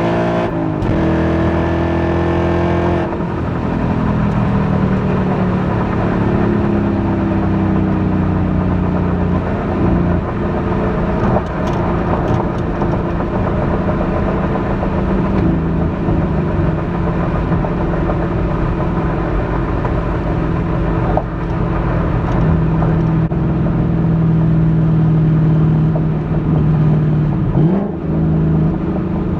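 2021 Ford Mustang GT's 5.0-litre V8 exhaust under way, picked up from the trunk. Revs drop in the first second, then the engine holds fairly steady revs, with a quick dip and rise in pitch near the end.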